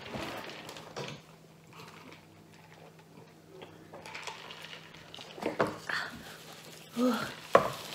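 Drinking from plastic cups, then a few small knocks as the cups are set down on a table, the sharpest a little before the end.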